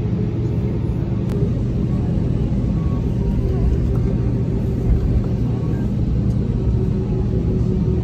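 Airbus A320-232 cabin noise while taxiing: its IAE V2500 turbofan engines running at taxi power, heard as a steady low rumble with a constant hum, as the jet rolls onto the runway.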